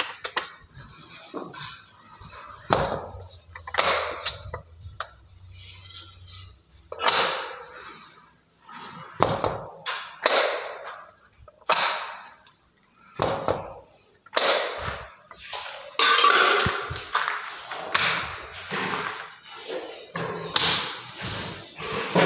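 Aluminium-framed glass sliding window being slid back and forth in its track: a run of short scraping slides, about one a second, with knocks as the sash meets the frame.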